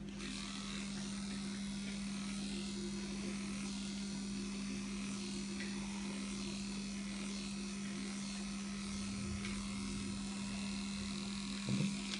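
Electric dog-grooming clipper fitted with a #4F blade, running with a steady hum as it is passed over a dog's curly coat.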